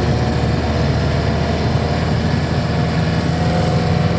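Camper van engine running steadily, heard from inside the cab with no change in pitch, its timing belt newly replaced and the engine sounding quiet and purring.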